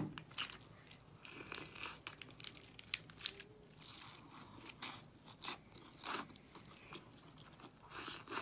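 Close-miked biting and chewing on a large mouthful of seafood: irregular wet, crunchy mouth clicks and crackles, with a sharp bite at the very start.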